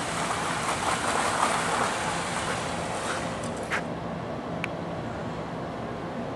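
Metal push sled scraping and grinding across concrete as it is driven at speed, the noise dropping off about four seconds in as the sled stops, followed by a couple of short clicks.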